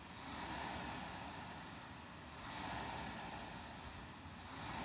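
Air-resistance rowing machine flywheel whooshing, swelling with each drive stroke about every two seconds, three times.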